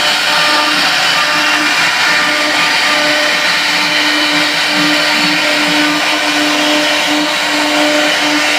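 High-speed CNC router running steadily: a loud, even whirring hiss with a constant low tone underneath.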